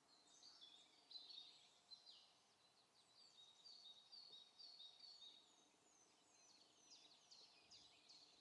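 Faint birdsong: many short, high chirps and quick downward-sliding notes, some repeated in a rapid series, over a quiet background.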